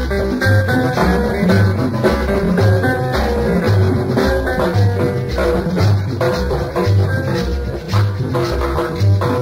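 Dance music from a sound system recording: a steady bass beat with percussion and a repeating melodic line.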